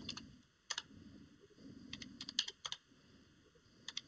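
Computer keyboard typing: faint, sharp key clicks in short runs of a few strokes with pauses between them, as a phone number is keyed in.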